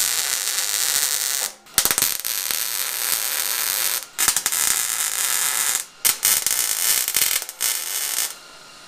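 Wire-feed welder laying short stitch welds on car-body sheet steel: a steady, loud crackle in four runs of one to two seconds with brief breaks between them, stopping just before the end. The welds attach a fuel-filler neck flange to the panel behind the rear firewall.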